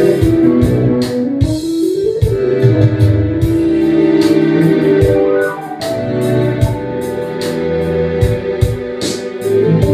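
Two electronic keyboards, a Korg Kronos and a Korg SV-1, improvising together in a groove: sustained electric-piano and organ-like chords over a moving bass line, with a steady percussive beat ticking through.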